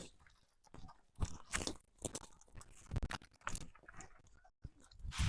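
Footsteps crunching on a dirt trail, an irregular string of short steps about two a second.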